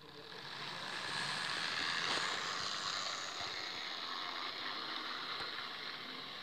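Model E646 electric locomotive running along the track close by: the steady hiss and whir of its motor and wheels on the rails, growing louder over the first second or two, then easing a little.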